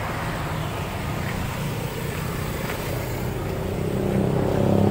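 Road traffic running steadily, with a vehicle engine drawing closer and growing louder near the end.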